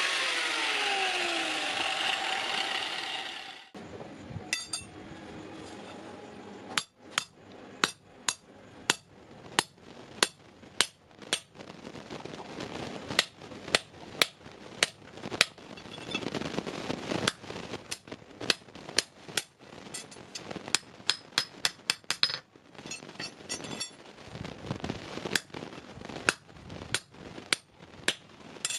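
An angle grinder runs on the steel hook, its pitch falling, and stops abruptly after about three and a half seconds. Then a hand hammer strikes the steel bar on an anvil in a steady run of ringing blows, about two a second, with a short pause near the end.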